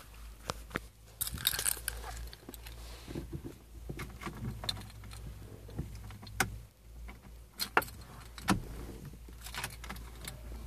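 Car keys jangling and clicking in short bursts, handled at the ignition of a Citroën C4.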